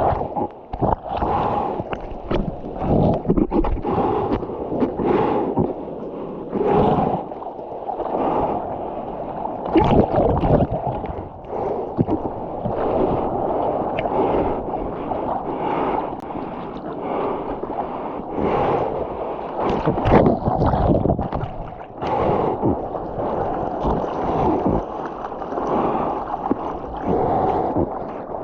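Seawater sloshing and splashing around a surfer's body-mounted camera in irregular surges, with wind buffeting the microphone.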